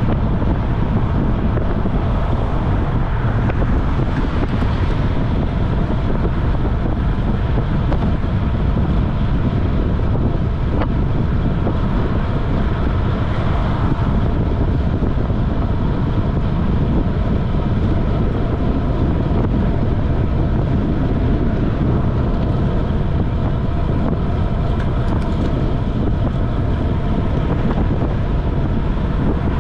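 Steady wind noise buffeting the microphone of a camera on a road bike riding at about 26 to 31 mph, heaviest in the low rumble.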